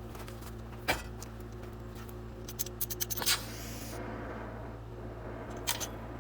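A steady low electrical hum, with a sharp click about a second in, a quick run of clicks and a scrape around the middle, and two more clicks near the end: small tools or pieces being handled at a workbench.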